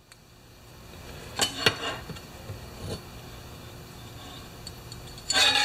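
Steel feeler gauge leaves and a chainsaw guide bar being handled on a workbench: a few light metal clicks, then a louder ringing metal clatter near the end.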